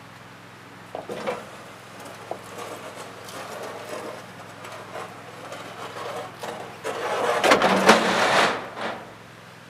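A heavy walk-behind brush hog being rolled across a wooden trailer deck and brought down off the trailer, engine off: a few knocks, then a rough rolling rumble and clatter, loudest near the end as the mower comes down off the trailer.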